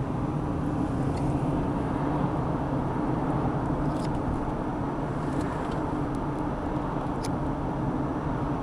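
Steady engine and tyre noise of a car driving at road speed, heard from inside the cabin as an even low rumble.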